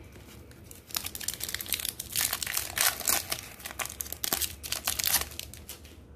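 A trading card pack's wrapper being crinkled and torn open: a dense run of crackles from about a second in, easing off about five seconds in.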